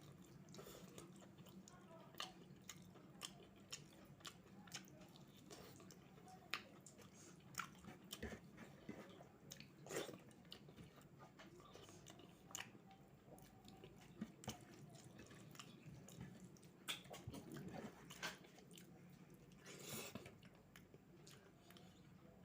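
Quiet chewing and biting of food: irregular wet mouth clicks and smacks, with a few louder bites scattered through.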